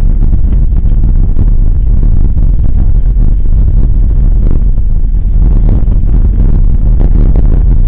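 A mountain bike rolling over a gravel road, picked up by a camera mounted on the front wheel: a loud, steady low rumble of wind buffeting and road noise, with a constant scatter of small ticks and rattles from gravel under the tyre.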